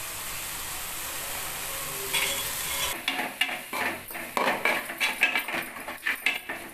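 Onion-masala sizzling in a pot on the stove as a steady hiss, then from about three seconds in a utensil scraping and clinking against the cooking pots in quick irregular strokes.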